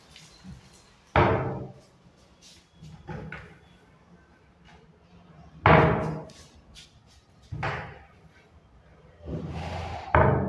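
Lift-up wardrobe loft shutters on hydraulic lift stays being pulled down and shut: three loud bangs spread out over several seconds, then a softer knock near the end.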